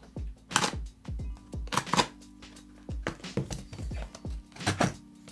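Pocket-knife blade cutting and scraping through packing tape on a small cardboard box, in a series of short strokes with pauses between them.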